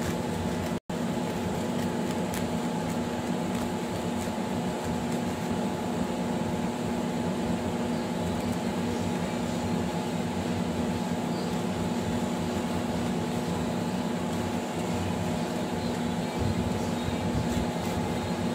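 Steady machine hum with several unchanging tones, like a room air conditioner or fan running, cut off for a split second about a second in.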